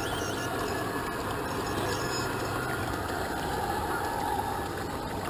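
A G-scale model train rolling steadily across a wooden trestle over a small garden stream, blended with the stream's steady trickle over the rocks.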